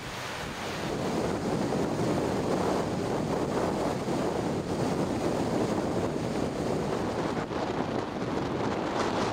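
Strong storm wind buffeting the microphone over choppy open water, with waves washing onto the shore, in the wake of a hurricane.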